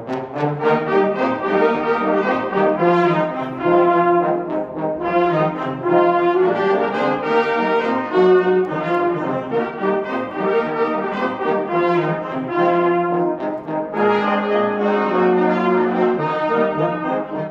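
A youth wind ensemble of trumpets, saxophones, trombone and tuba playing live, a brass-led piece of many short notes.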